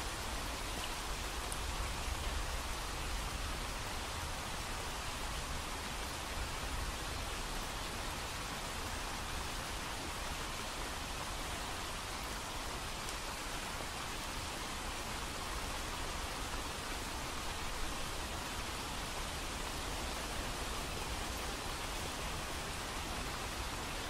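Steady rain, an even hiss that does not rise and fall.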